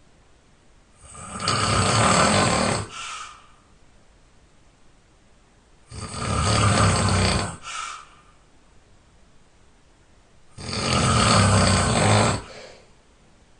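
A person snoring loudly in their sleep: three long snores about five seconds apart, each ending in a short, quieter tail.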